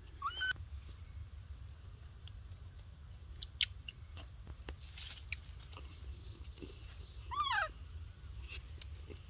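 Baby macaque giving two short high-pitched calls: a brief rising squeak just after the start and a falling, wavering cry about seven seconds in. Sharp little clicks between them, the loudest about three and a half seconds in, over a steady low rumble.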